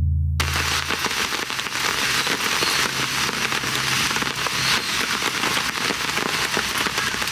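Steady rain pattering on the camp tarp overhead, a dense even hiss of fine drop ticks. A low hum cuts off about a second in.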